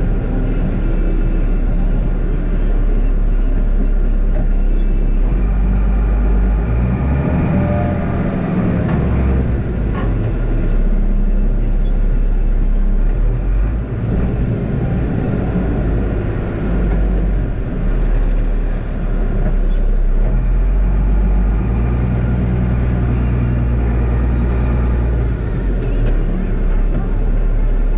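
Mercedes-Benz Unimog U1400's six-cylinder diesel engine working under load while the truck pushes snow with its front plow, the engine note stepping up and down a few times as the load changes.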